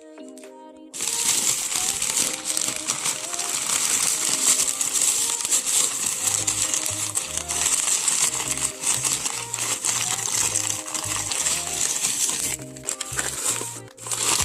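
Packing wrapping crinkling and rustling continuously as it is handled, starting abruptly about a second in, over background music with a bass line.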